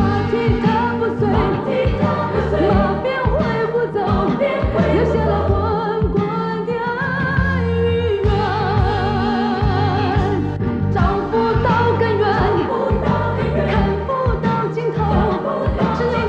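Drama theme song: a singer sings Mandarin lyrics ("馬蹄踏不碎… 留下了滾滾的恩與怨… 只有那澎湃的愛與恨") with a wavering vibrato, over full band accompaniment.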